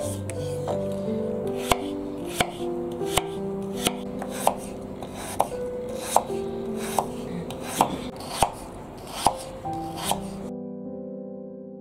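Chef's knife slicing peeled raw potatoes on a wooden cutting board: a sharp tap of the blade on the board at each cut, about one every three-quarters of a second, stopping near the end.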